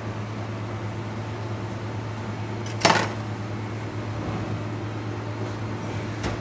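Steady low machine hum of a restaurant kitchen's equipment, with one brief loud burst of noise about three seconds in.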